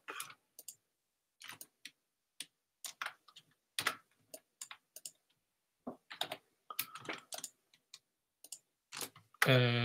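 Computer keyboard keystrokes and mouse clicks, scattered single clicks at irregular intervals with short quiet gaps between them.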